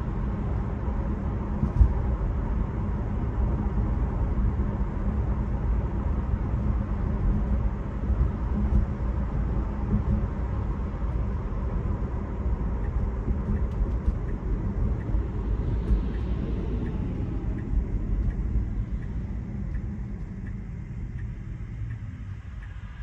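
Steady road and tyre rumble inside the cabin of a Tesla electric car cruising on a highway, with one sharp knock about two seconds in. The rumble fades over the last few seconds as the car slows.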